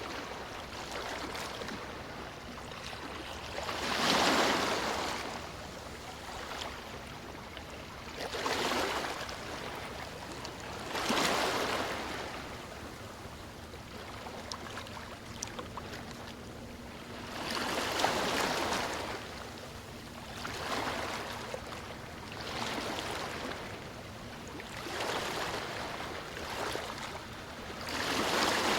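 Waves washing in: a steady rush of water that swells into a louder surge every few seconds and then dies back.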